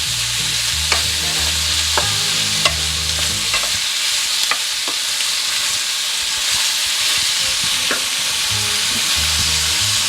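Sliced zucchini, peppers, onion and chicken sausage sizzling steadily in olive oil in a sauté pan, with a few sharp clicks of a utensil against the pan.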